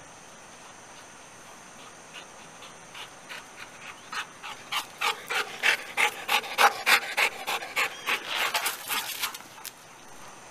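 A dog panting hard and fast up close, about three breaths a second, out of breath from running after a tennis ball again and again. The panting starts a couple of seconds in, is loudest in the middle and stops near the end.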